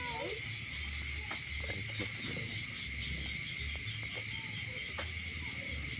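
Night insect chorus, likely crickets: a steady, high-pitched chirring with a rapid, even pulse, with a few faint clicks.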